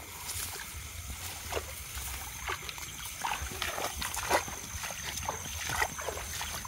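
Barefoot footsteps splashing through wet ground and shallow water while brushing through tall grass: an irregular run of short swishes and splashes, a few of them louder.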